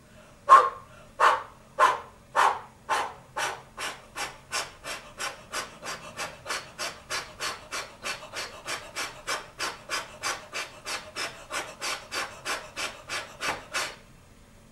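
Steam-train exhaust chuffs that start slow and loud and speed up to about three a second while fading, as when a train pulls away. The chuffs stop abruptly near the end.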